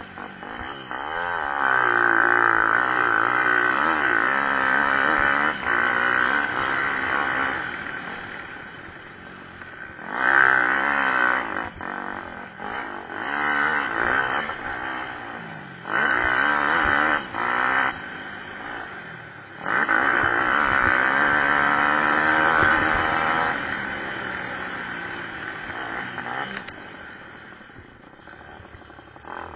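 Pit bike engines revving hard as the bikes race past in several loud passes, the pitch rising and falling with throttle and gear changes, fading between passes.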